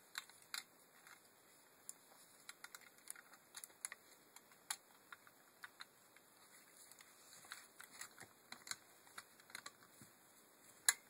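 Small irregular clicks and taps of plastic and metal parts as a Land Rover Freelander rear window regulator's cable drum is fitted into its housing by hand, with one sharper click near the end.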